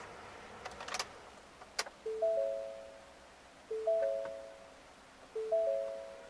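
A few light clicks, then a 2016 Ford F-150's dashboard warning chime: three notes struck together and fading, repeating about every 1.6 s, three times.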